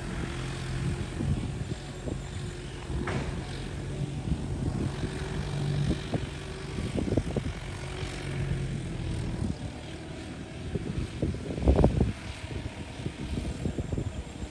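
Farm tractor engine running steadily as it works the field, a low hum that fades after about nine seconds. A few knocks and thumps come through, the loudest near the end.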